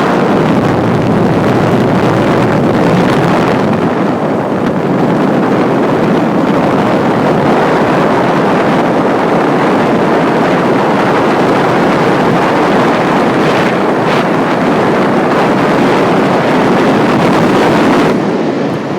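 Loud, steady wind rush on the camera microphone from a fast bicycle descent, easing a little near the end as the speed drops.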